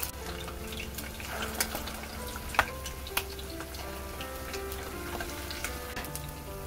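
Seafood fritters deep-frying in hot oil: a steady bubbling sizzle with scattered sharp pops and crackles, the loudest about two and a half seconds in.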